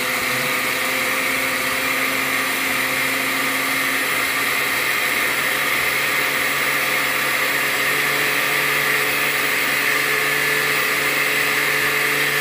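Countertop blender running steadily, liquefying a thick mixture of milk, oil, crackers, cheese and cooked vegetables into a cream.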